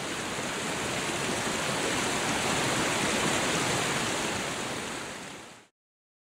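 Fast river water rushing over rocks in rapids, a steady dense wash of white-water noise. It swells slightly, then fades out and stops abruptly about five and a half seconds in.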